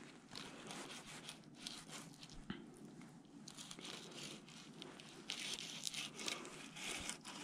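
Serrated fillet knife cutting between a crappie fillet and its skin on a plastic cutting board: faint scraping and tearing with small ticks, and a stronger scrape about five seconds in.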